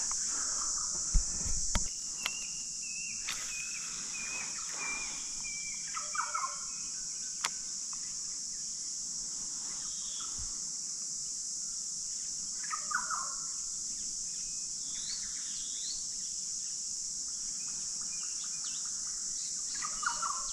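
Outdoor bush ambience: insects keep up a steady high-pitched drone, and birds give scattered chirps and short calls that recur every several seconds. A couple of sharp knocks come in the first two seconds.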